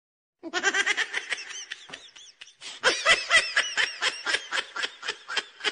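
Rapid, high-pitched laughter in two long runs, starting about half a second in, with a short break a little after two seconds.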